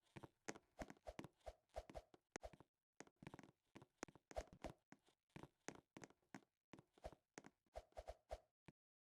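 Faint, irregular knocks and taps, several a second, over near silence.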